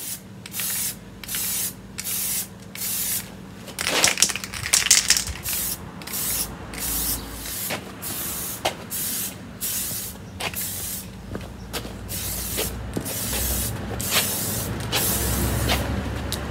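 Aerosol spray-paint can spraying a scooter wheel in short repeated hissing bursts, about two a second, with one longer spray about four seconds in. A few sharp clicks fall between the bursts.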